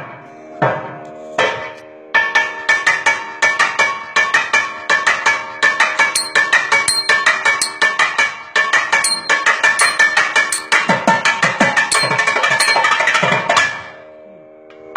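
Thavil played in a solo percussion passage (thani avarthanam). A few separate strokes give way, about two seconds in, to a fast, dense run of sharp strokes that stops abruptly near the end. A steady drone holds underneath.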